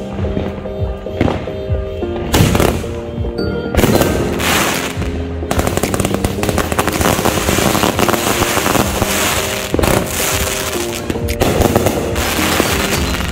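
Consumer fireworks going off in rapid strings of bangs and crackling, thickest through the middle, with background music playing over them.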